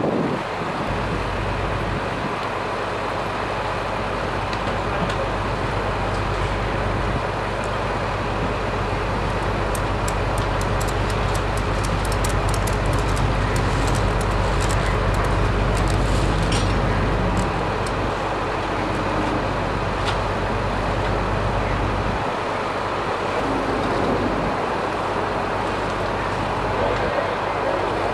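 Steady outdoor rumble of idling vehicle engines and street traffic, its low end swelling and dropping away every few seconds, with faint scattered clicks near the middle.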